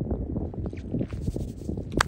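Wind buffeting the microphone in an uneven low rumble, with footsteps crunching over dry reeds and stubble partway through.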